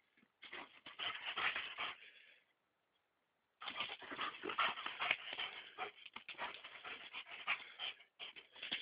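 Two German Shepherds play-fighting: bursts of panting and rough scuffling noises, with a pause of about a second midway.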